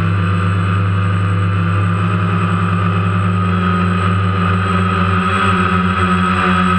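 DJI Phantom quadcopter's propellers and electric motors humming steadily in flight, a constant low drone with a higher whine, heard close up.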